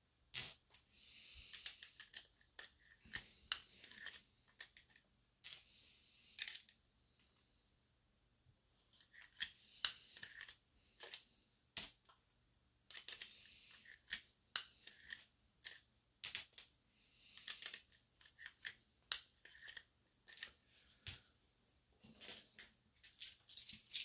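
Loaded 7.62x39 brass rifle cartridges clinking against one another as they are handled and set down on a towel: a string of sharp, bright clicks, several with a short ring, between soft rustling.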